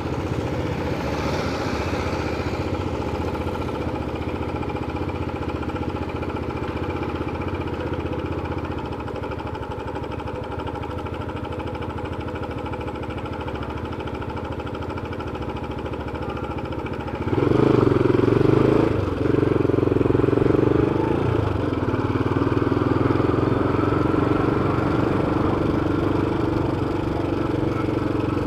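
Motorcycle engine idling steadily with the bike stopped. About 17 seconds in it gets suddenly louder as the bike pulls away, then runs on under way.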